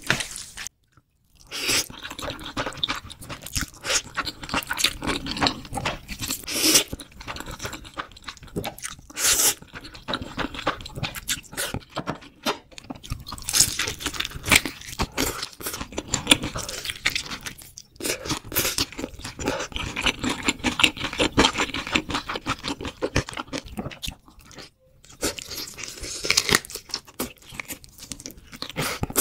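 Close-miked crunching and chewing of crispy sauced fried chicken, a dense run of crackling bites and mouth sounds with a short break about a second in.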